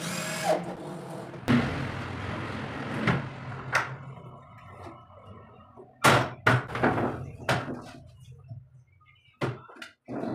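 Corded electric hand drill running for the first few seconds as it bores into the wooden wall panel. A burst of sharp knocks and clunks follows about six seconds in, with two more near the end, as the folding table top is swung down and its leg set in place.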